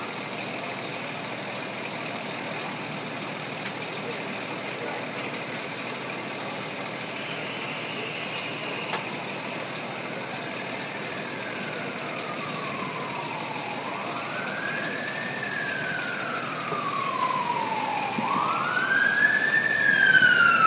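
Fire truck siren wailing, rising quickly and falling slowly about every four seconds. It starts about halfway through and grows louder as it approaches, over a steady rumble of engine noise from the trucks on scene.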